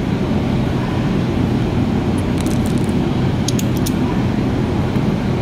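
Steady, loud low drone of background noise. A few light, sharp metal clicks come between about two and four seconds in, from hydraulic valve lifters and locking pliers being handled.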